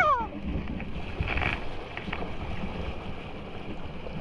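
A kayak running through rushing creek water, with wind rumbling on the microphone and a few light knocks from the boat or paddle. The falling end of a shout is heard right at the start.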